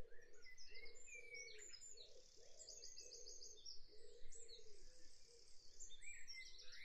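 Faint birdsong: many high chirps and rising and falling whistles, with quick runs of repeated notes about a third of the way in and again near the end.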